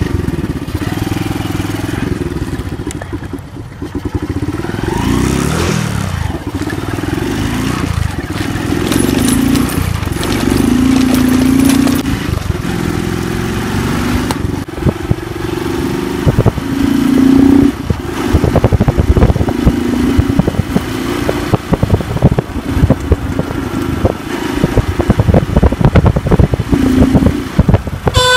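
Honda Twister's 110cc single-cylinder four-stroke engine running on the move with its air filter removed, a modification meant to give it a racier sound. The engine note rises and falls again and again with the throttle, with gusty wind noise on the microphone.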